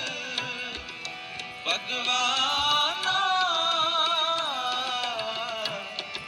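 Music: a wavering, ornamented melodic line with light percussive ticks.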